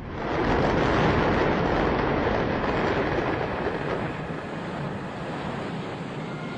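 A loud rushing rumble of noise with no clear pitch. It swells within the first second, holds for a couple of seconds, then slowly fades.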